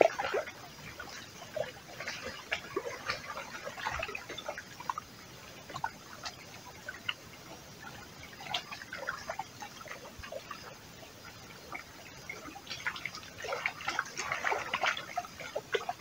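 Birds chirping in scattered bursts over water lapping, with the soft ticking of a spinning reel as a hooked fish is wound in.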